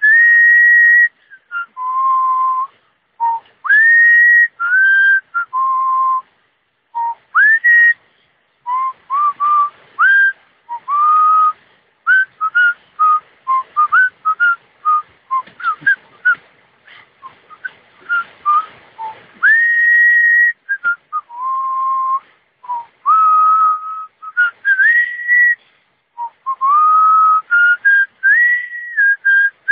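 A person whistling a tune: a clear melody of held notes, often sliding up into a note, in short phrases with brief pauses between them.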